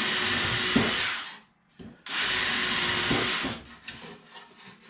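Cordless drill with a small bit boring pilot holes through thin wooden strips: two bursts of drilling, each about a second and a half long, the second starting about two seconds in.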